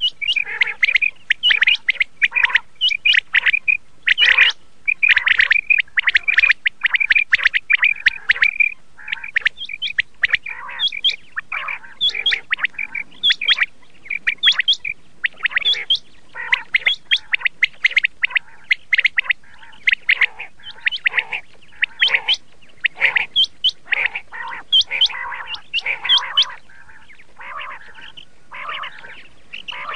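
Common quail calling: many short, sharp call notes follow one another in quick succession without a break.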